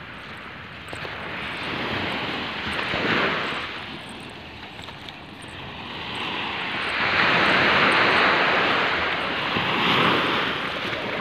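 Small sea waves breaking and washing up a sandy shore. The noise of the surf swells briefly about three seconds in, then builds to a longer, louder wash in the second half.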